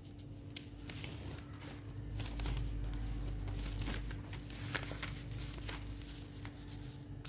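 Sheets of paper handled and shifted by hand: scattered soft crinkles and rustles, with a low rumble from about two seconds in to about four and a half, over a faint steady hum.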